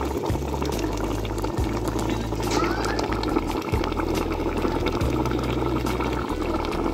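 Thick sauce with chunks of beef liver simmering in a pot, bubbling and popping steadily.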